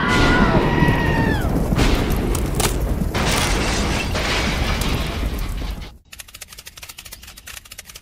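Thunderstorm sound effect: loud rumbling thunder booms over a dense roar, cutting off abruptly about six seconds in. A quieter run of evenly spaced ticks follows.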